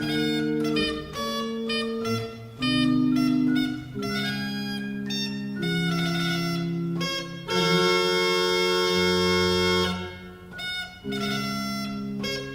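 Organ playing sustained chords in a slow early-music piece. A long chord is held for over two seconds near the middle and breaks off, and the playing resumes about a second later.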